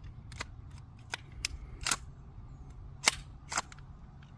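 Sharp metallic clicks and clacks from a CZ Scorpion pistol being worked to clear a failure to feed after an improperly seated magazine. There are about six, the loudest about three seconds in.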